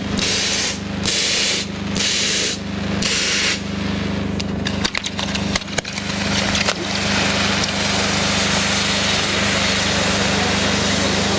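Fireworks frontpiece firing: a fountain hisses in spurts about once a second, then a few sharp cracks, then a dense steady hiss as the star-shaped frame's fountains and lances ignite. A steady low hum runs underneath.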